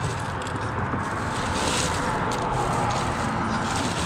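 Crushed ice and a plastic bag crunching and rustling as a hand packs fish into ice in a cooler, over a steady rushing background noise.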